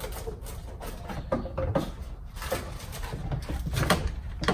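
Metal brake pad clips being handled and pressed into place on a rear brake caliper bracket: a series of light, irregular clicks and knocks.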